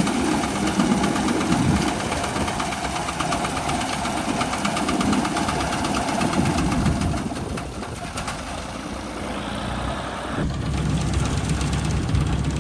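Tractor's diesel engine running steadily with a fast, even firing pulse; it drops somewhat in level in the middle and comes back up again about ten seconds in.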